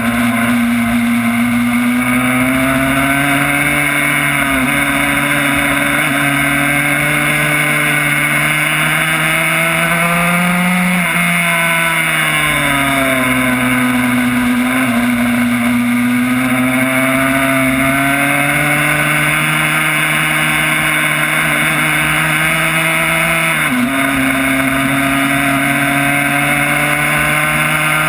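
Yamaha YZ85 85cc single-cylinder two-stroke engine in a Honda RS125 race bike, heard from on board while lapping a track. The revs climb through the gears with brief dips at the shifts, fall away once about eleven seconds in, then climb again.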